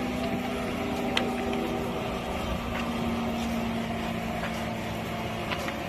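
Military helicopter's turbine engine running with its main rotor turning slowly: a steady hum at a constant pitch over a noisy background, with a sharp click about a second in.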